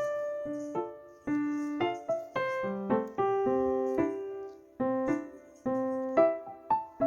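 Background piano music: single notes and chords struck at a gentle, uneven pace, each ringing and fading.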